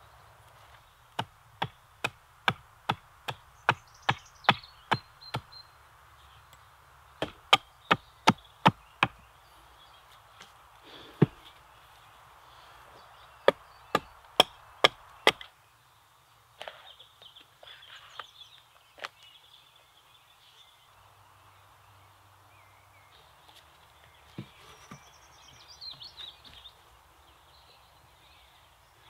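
Hand axe chopping into a branch on a chopping stump: runs of sharp strikes at about two to three a second in several bursts, stopping about halfway through. Later, faint birdsong and a few light knocks.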